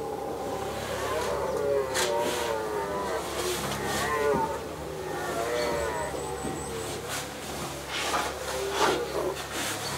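Red deer stags roaring in the rut: several drawn-out calls overlapping, wavering in pitch, with a few sharp clicks.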